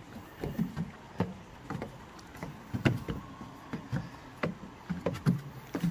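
Footsteps of an adult in slide sandals and a small child climbing a steel staircase: a run of irregular knocks on the treads, about two to three a second.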